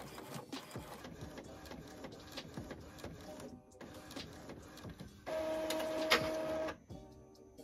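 Epson ET-2720 inkjet printer printing a page on its slow premium matte setting: the print head carriage shuttles and the paper feed ticks. A louder steady motor whine for about a second and a half comes a little after five seconds in.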